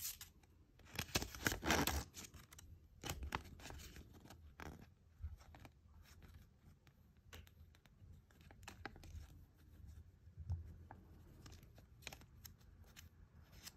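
Paper leaflet from a gashapon capsule rustling and crinkling as it is unfolded and handled, loudest about a second in, followed by scattered light clicks and short rustles as the small plastic figure and paper are handled.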